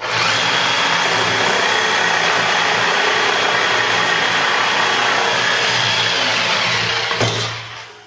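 Festool jigsaw cutting through a laminate kitchen worktop for a sink opening. The motor and reciprocating blade run loudly and steadily with a faint high whine, then cut off about seven seconds in.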